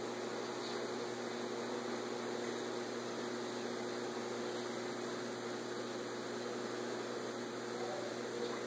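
Aquarium filter running: a steady hum with a few pitched tones under an even hiss.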